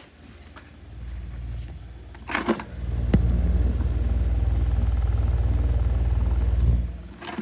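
2019 Schallen 12-inch desk fan running on medium, its badly worn bearings making scratching noises. A couple of knocks come about two and a half and three seconds in, then a steady low rumble holds until it fades near the end.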